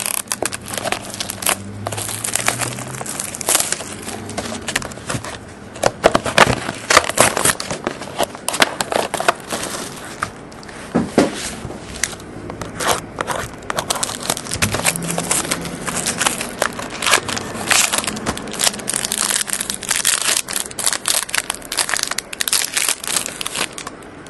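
Clear plastic shrink-wrap crinkling and crackling in irregular bursts as it is torn and peeled off a sealed box of baseball cards and the packaging is handled.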